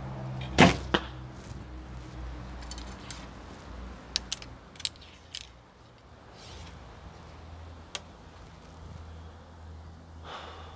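Recurve bow shot: a sharp snap of the string on release, then a second, quieter knock about a third of a second later as the arrow strikes the target. Several lighter clicks and taps follow in the middle, and one more click later on.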